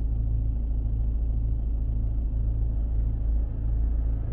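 BMW 520d idling with the heater/air-conditioning blower fan at full speed, a steady loud rumble and rush of air. The blower's noise is abnormally loud, from a blower motor fouled by leaves that got past its crumbled sponge filter.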